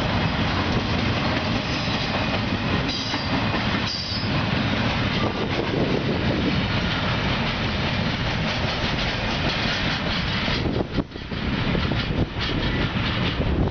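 Loaded intermodal freight cars, double-stack container well cars and trailers on flatcars, rolling past at speed, the steel wheels clattering and rumbling over the rail joints, with a brief high squeal about three seconds in.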